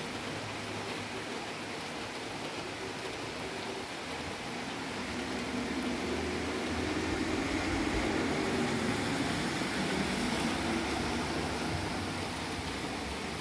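Steady rain falling, with a low rumble that builds and fades away over several seconds in the middle.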